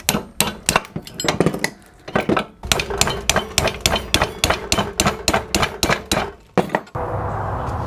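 Hammer tapping a spanner on a double-nutted stud to crack it loose from a turbo housing: a quick run of sharp metallic clinks, about three or four a second, with a short pause about two seconds in. Near the end it cuts to a steady hiss.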